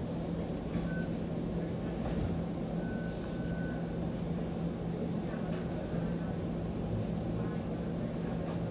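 Toronto streetcar running between stops, heard from inside the car: a steady low hum with a constant drone and rolling rumble from the running gear.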